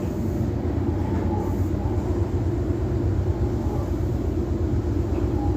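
Meitetsu Inuyama Line electric train running, heard from inside the car: a steady low rumble of wheels on rails.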